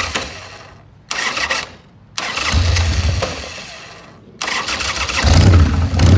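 1988 Harley-Davidson Sportster's V-twin being cranked in several short tries, with pauses between. The engine catches about five seconds in and keeps running.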